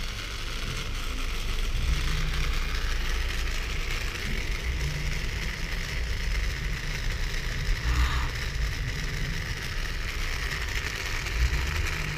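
Toy RC tank's small electric drive motors and plastic gearboxes running, driven from the transmitter: a steady whirr over an uneven low rumble.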